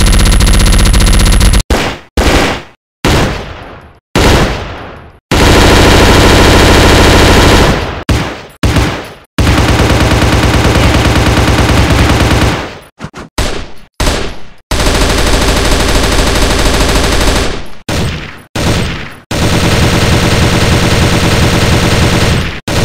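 A run of gunfire sound effects: long bursts of rapid automatic fire alternate with short bursts and single shots, several of which trail off in echoing tails. The long bursts come about five seconds in, again near ten seconds, around fifteen seconds, and near the end.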